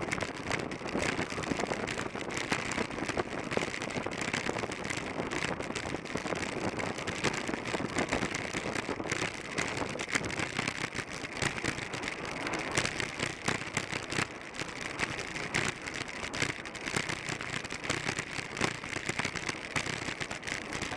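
Steady rush of wind over the microphone, with tyre hiss from a track bicycle riding on the concrete velodrome at about 25 mph.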